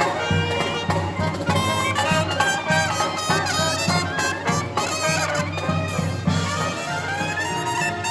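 Live marching brass band playing a tune, with trumpets and trombones carrying the melody over a steady repeating bass line.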